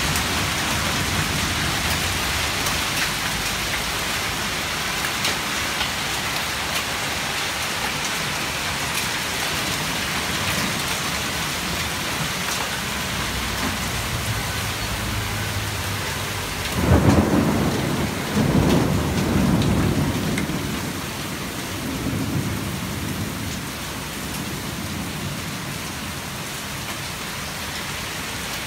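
Torrential rain pouring steadily, with a sudden loud thunderclap about two thirds of the way through that rumbles on for a few seconds before fading back under the rain.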